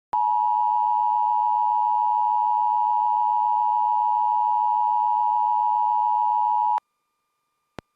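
Emergency Alert System attention signal: a steady alert tone just under 1 kHz that holds for about six and a half seconds and cuts off abruptly. A short silence follows, broken by a single click near the end.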